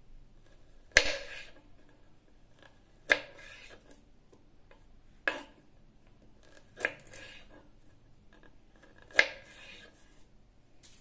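Kitchen knife slicing through baby corn and striking a wooden chopping board: five sharp chops, roughly two seconds apart.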